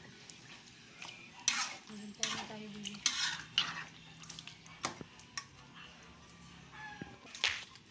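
A metal spatula stirring and scraping chicken pieces in coconut milk around a metal wok, in uneven strokes with a few sharp taps against the pan, the loudest near the end.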